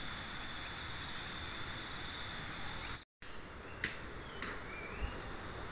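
A steady, high-pitched chorus of insects over a soft hiss. After a brief cut near the middle come two sharp clicks a little over half a second apart, with a few short rising chirps.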